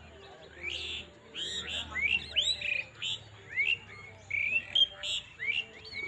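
Birds chirping: a rapid run of short calls, each a quick upward sweep or arched note, coming two or three times a second from about half a second in.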